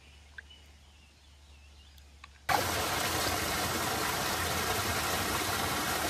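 Rushing water: a loud, steady, even rush that cuts in abruptly about two and a half seconds in, after faint background.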